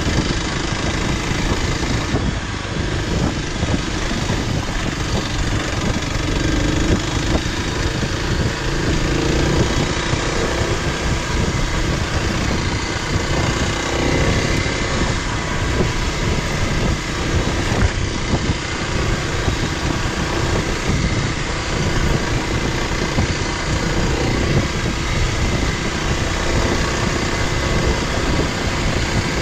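Dual-sport motorcycle running at a steady pace on a trail ride. The engine sound is mixed with a dense, even rushing noise that holds at a steady level throughout.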